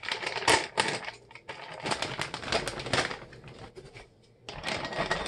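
Plastic bag of pecans crinkling and rustling as it is opened and handled, a dense run of rapid clicks and crackles with one sharp crackle about half a second in. It eases off briefly shortly before the end, then starts again.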